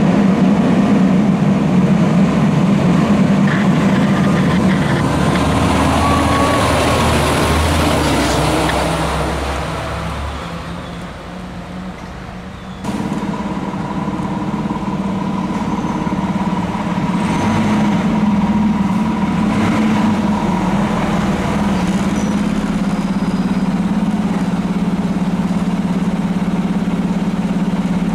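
Fire truck on a response: a heavy truck engine running loud, then fading away. About 13 seconds in there is an abrupt cut to another fire truck's engine running steadily.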